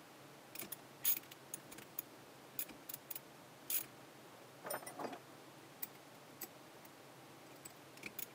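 Socket wrench with a long extension being fitted and worked on the pump's housing bolts: scattered sharp metallic clicks and clinks, with a short rattling scrape about five seconds in.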